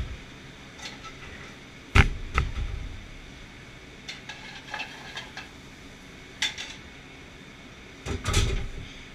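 Metal kitchenware clattering: tongs and utensils knocking against steel sauté pans on a gas range. Sharp clanks come about two seconds in and again near the end, with lighter knocks between, over steady kitchen background noise.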